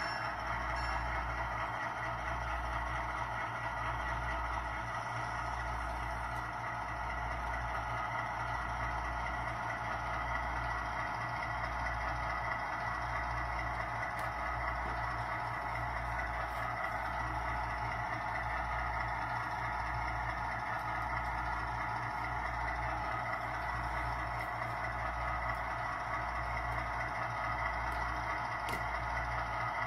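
Recorded EMD SW1 diesel switcher engine sound from an ESU LokSound decoder, played through the HO-scale model locomotive's small speaker, running steadily with a low throb that pulses about once a second.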